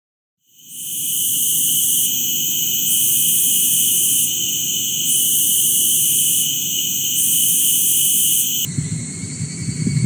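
Male cicadas singing: a loud, steady, high-pitched buzz that fades in about half a second in, swelling and easing slightly about every two seconds. Near the end it changes to a thinner buzz over a louder low rumble.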